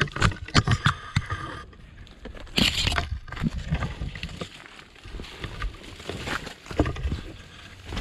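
Footsteps descending a steep wooded trail, with irregular thuds and the rustle of leafy branches brushed aside.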